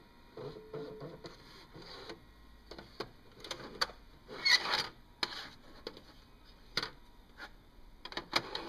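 Irregular plastic clicks, clacks and short scrapes of a VHS cassette being pushed at a VCR's loading slot, with the loudest clatter about halfway through; the tape will not go in.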